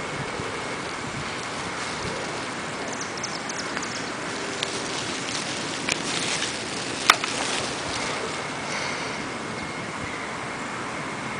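Steady outdoor background noise with wind on the microphone and a faint steady high tone. A few sharp clicks break it about six to seven seconds in, the loudest just after seven seconds.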